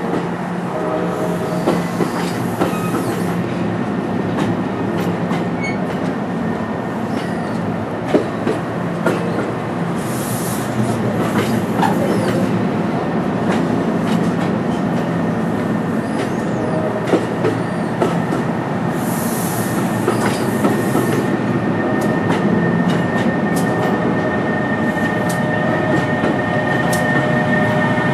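NJ Transit multilevel passenger coaches rolling slowly past, wheels clicking over rail joints over a steady rumble, with a couple of brief high hissing squeals. Near the end a steady electric whine comes in as the ALP-46 electric locomotive pushing at the rear draws close.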